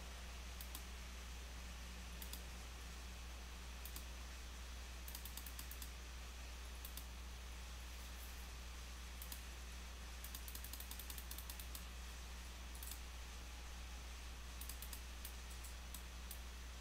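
Faint computer keyboard typing: single key clicks spaced a second or two apart, with two quick runs of keystrokes, about a third of the way in and again past the middle, over a steady low electrical hum.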